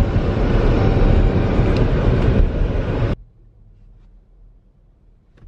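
Loud, steady rumbling noise, heaviest in the low range, that cuts off suddenly about three seconds in, leaving only a faint low hum.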